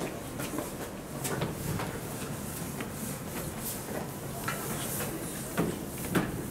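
Footsteps and scattered short knocks of a small group walking over steady outdoor background noise.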